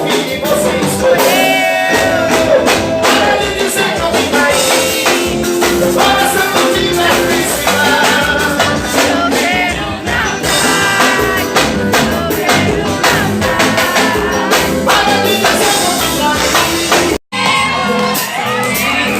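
Live band music with a singer, loud and continuous, cutting out to silence for a split second about seventeen seconds in.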